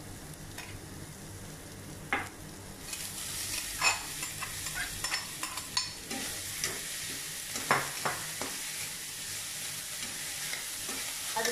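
A metal spoon stirring a dry vegetable stir-fry in a hot metal wok: oil sizzling steadily, louder from about three seconds in, with scattered clinks and scrapes of the spoon against the pan.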